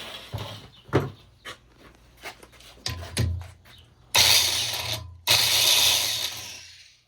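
Light metal clicks and knocks as the grinding stone is set on the valve seat, then a drill spins a Blue Point valve seat grinding stone against a Pontiac 400 cylinder head's valve seat in two bursts, about a second and then nearly two seconds of grinding.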